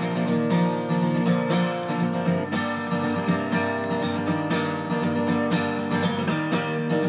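Background music played on acoustic guitar, with plucked and strummed notes.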